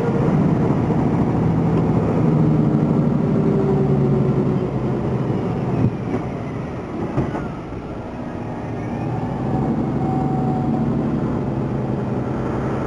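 Mercedes-Benz Actros 3341 truck's V6 diesel engine running under load, heard inside the cab as the truck drives. The engine eases off about six seconds in and picks up again a few seconds later.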